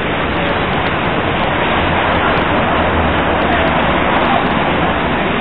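Loud, steady rushing noise with an uneven low rumble.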